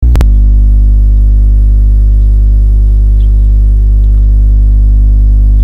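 Loud, steady low electrical-type hum with a stack of even overtones, unchanging throughout, after a brief click at the very start.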